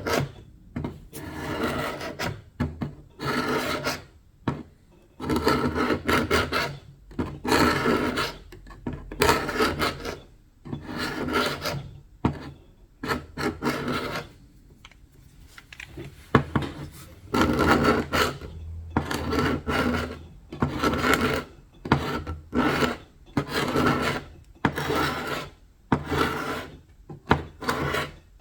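Hand strokes of an abrasive tool rubbing back and forth over painted wood to strip the old paint and finish, about one stroke a second, with a short pause about halfway.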